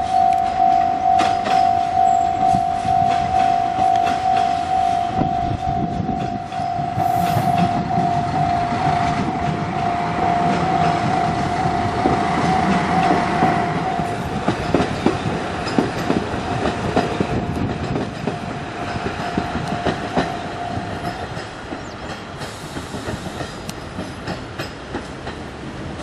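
Level-crossing alarm bell ringing in even pulsed clangs about twice a second, stopping a little after twenty seconds. Under it, a KiHa 185 series diesel express train rumbles past, its wheels clicking over the rail joints more plainly in the second half.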